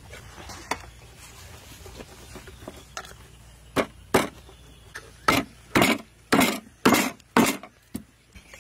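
Knife chopping through a slab of raw pork ribs onto a wooden chopping block: sharp chops begin a few seconds in and come about twice a second.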